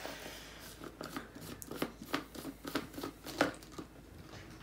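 Screw-on plastic lid of a shaker cup being twisted off, giving a string of irregular sharp plastic clicks and scrapes.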